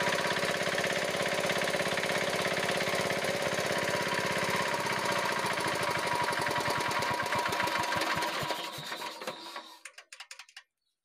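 Diesel engine running evenly, its loose rocker-arm adjusting nut tightened and valve clearance reset, a sound the mechanic calls very nice. About halfway through it slows, its separate beats spreading apart, and it comes to a stop near the end.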